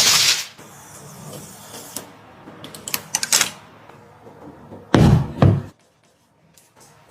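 Hardware being handled during a PC build: a short hiss cuts off at the start, then a few sharp clicks, and a heavy knock or thud about five seconds in.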